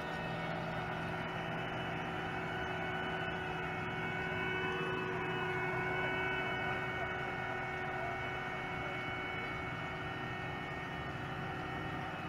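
Cat asphalt paver running steadily while laying asphalt: a steady diesel drone with several steady whining tones over it, slightly louder in the middle.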